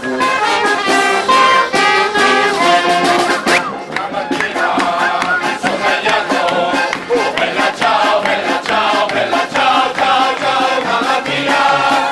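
Street brass band playing a lively tune: trumpets, trombones and a sousaphone over a steady beat.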